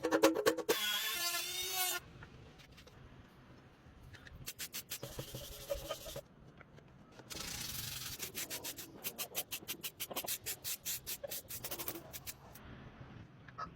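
Hand sanding or rubbing on a metal part: runs of back-and-forth strokes, about three a second, with a short pause between runs. It opens with a louder, denser scraping noise for about two seconds.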